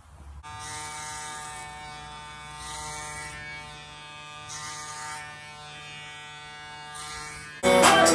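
Electric hair clipper running with a steady hum, with a few brief hissy swells as it works through hair. Hip-hop music cuts in loudly near the end.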